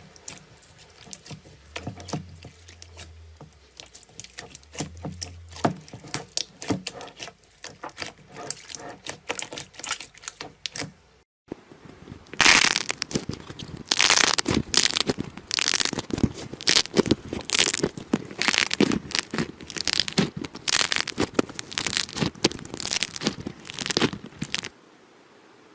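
Hands working slime, making a stream of small sticky pops and crackles. After a brief break about halfway through, the crackling becomes louder and denser, then drops away shortly before the end.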